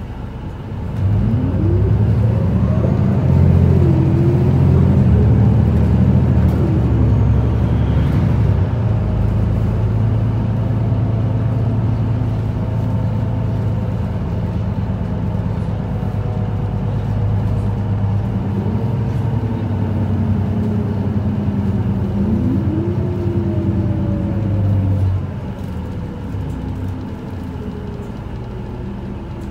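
Isuzu Erga city bus's diesel engine, heard from inside the passenger cabin, pulling hard from about a second in, with rising whines as it picks up speed. The engine note eases back about 25 seconds in as the bus comes off the throttle.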